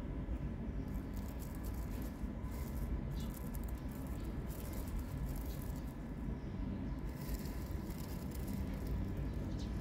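Dried mint leaves crackling and rustling as they are pinched from a glass jar and stuffed into a paper tea filter bag, coming in short spells of crisp rustles over a steady low background rumble.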